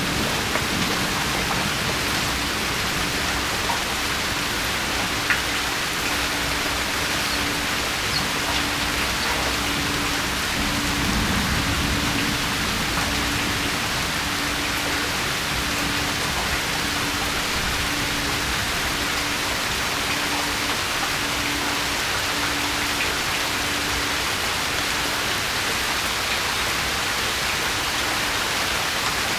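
Steady rain falling, an even continuous hiss with a few distinct drop ticks standing out.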